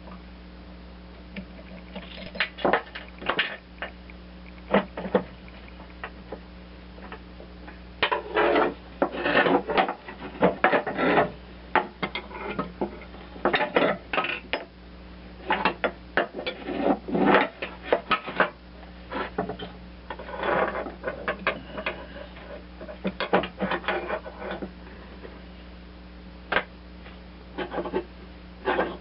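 Metal hand tools and parts clinking, knocking and scraping in irregular bursts while working on a mower deck's belt tensioner assembly, over a low steady hum.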